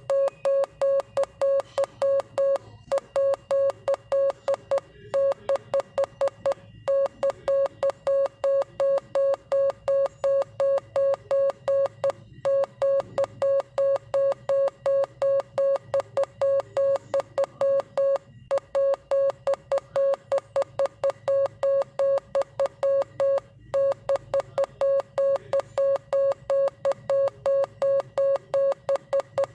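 Morse code sent as a single steady-pitched electronic beep keyed on and off in rapid dots and dashes, with a slightly longer gap every few seconds between words.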